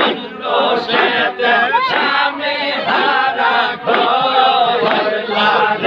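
A crowd of men chanting zikr together, many overlapping voices in short rhythmic phrases about two a second.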